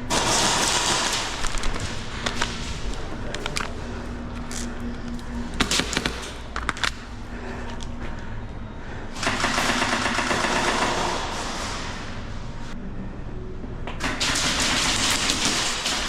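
Airsoft guns firing full-auto bursts: a short burst at the start, a longer one about nine seconds in, and another near the end, with a few single sharp shots or BB hits in between.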